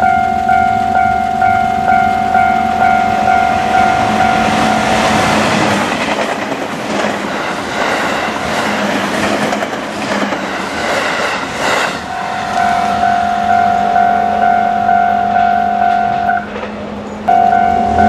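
Japanese level-crossing warning bell ringing in a steady, rapidly repeating ding. A few seconds in, an electric commuter train passes close by, its wheels rumbling and clacking over the rails and largely drowning out the bell for several seconds. Afterwards the bell is heard again, breaking off briefly near the end.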